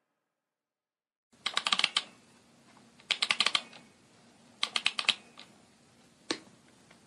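Rapid clicking like keys being typed on a keyboard, in three quick bursts about a second and a half apart, then a single click.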